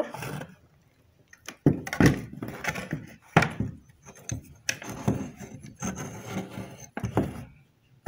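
Handling noise of an Oster blender motor being lifted out of its plastic base and set on a wooden workbench: rubbing and scraping with several sharp knocks, starting about a second and a half in.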